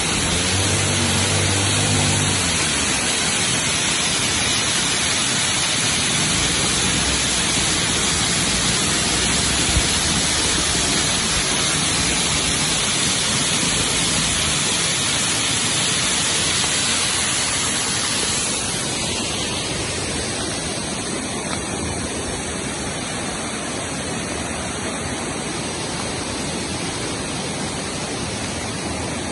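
Small waterfall running full after rain: a steady, dense rush of falling water that grows somewhat quieter about two-thirds of the way through. A low hum sounds under the water for the first couple of seconds.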